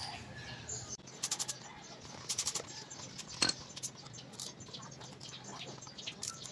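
Light metallic clicks and clinks of a scooter's rear brake disc and its bolts being fitted onto the wheel hub with a hand tool, some in short quick runs.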